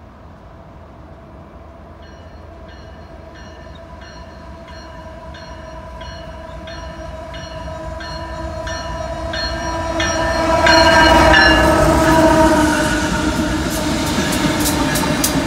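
Union Pacific diesel locomotives hauling a double-stack container train approach along the track, growing steadily louder and loudest about eleven seconds in. Near the end they pass close by, with the wheels clicking over rail joints.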